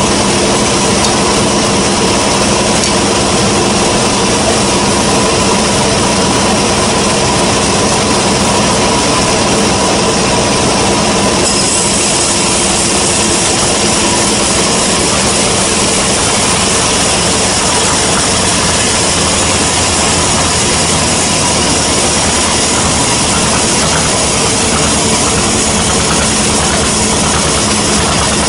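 Sawmill band saw running steadily, with a hum of steady tones over a dense hiss. About eleven seconds in the high hiss grows brighter and stays so.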